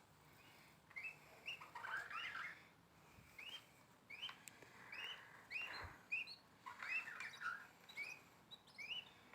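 Lovebirds chirping: a steady string of short rising chirps, about two a second, with a few busier, harsher calls among them. A single soft knock comes about halfway through.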